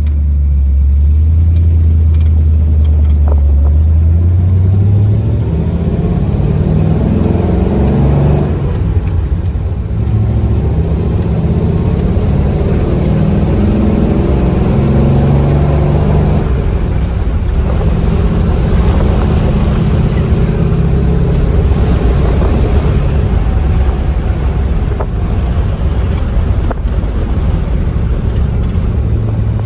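Old car's engine running while being driven, steady and low for the first few seconds, then climbing in pitch and dropping back several times, as when pulling away and shifting up through the gears.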